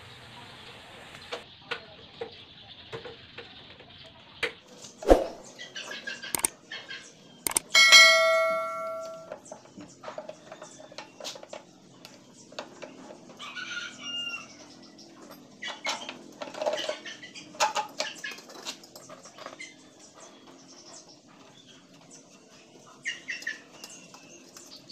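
Metal tools and wheel parts knocking and clicking as a motorcycle front wheel is refitted and its axle nut tightened. A sharp knock comes about five seconds in, then a loud metallic clang that rings for about a second.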